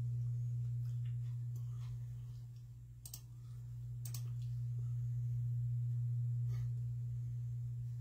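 A steady low hum that dips briefly about three seconds in, with a few faint clicks.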